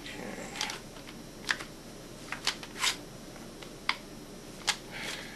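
Large clamps being adjusted by hand: scattered sharp clicks and clacks, six or so at irregular intervals, as their jaws are slid into position.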